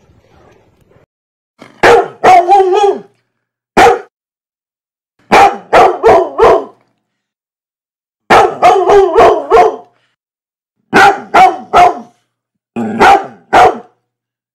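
Dog barking loudly in short, sharp barks, grouped in about six runs of one to four barks with silent gaps between them.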